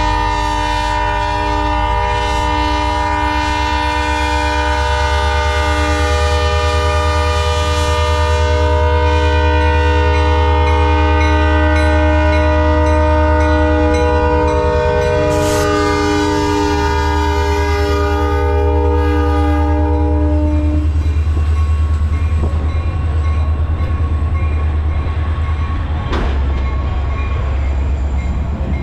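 The horn of EMD SD40 diesel locomotive #7471, a chord of several tones held in one long blast for about twenty seconds and then cut off. Under it and after it, the locomotive's diesel engine rumbles steadily as the train rolls past, with the passenger cars going by near the end.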